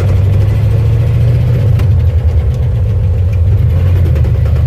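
1974 Ford F250 pickup's engine running with a steady low rumble.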